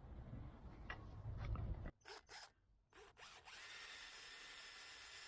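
Cordless drill driving screws: two short blips of the motor, then a steady whine from about three and a half seconds in. Before that, low rumbling handling noise with a few light clicks.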